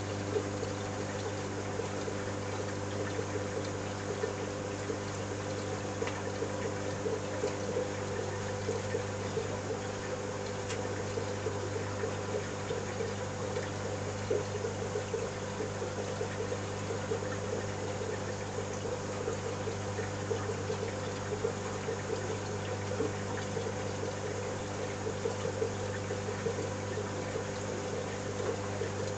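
Marine aquarium's circulation pumps running, a steady low hum with a fluttering buzz, under an even wash of moving, trickling water.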